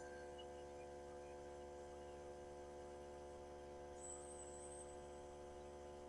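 Faint steady hum, with a brief faint high whine about four seconds in.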